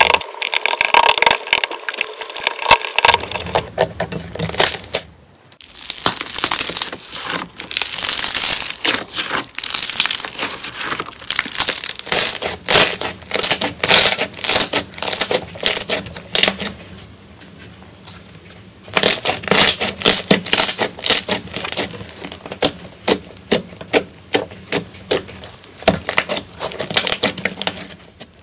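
Slime being squeezed and pressed by hand close to the microphone, giving dense runs of crackling, popping clicks in bursts, with brief quieter pauses about five and seventeen seconds in.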